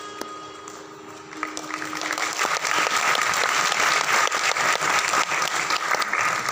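Last held violin notes die away as audience applause starts about a second and a half in, grows quickly and carries on steadily.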